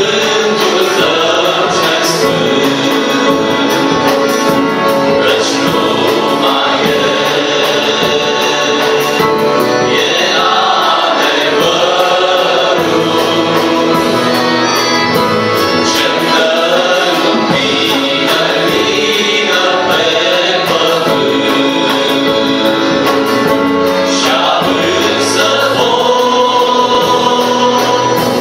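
Male vocal group singing a Romanian Christian song together, accompanied by accordion and drum kit.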